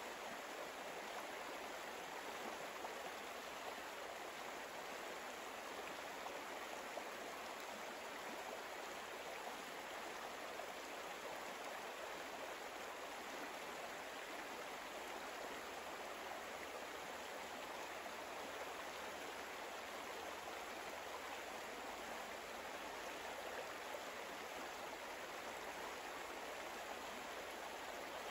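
Soft, steady rushing of flowing water, like a gentle stream, playing as a calm ambience bed with no changes or distinct events.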